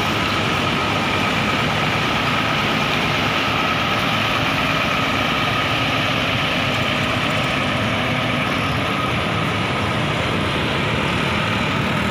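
Diesel engine of a Mercedes-Benz intercity bus idling steadily, with a thin steady whine over the low running sound.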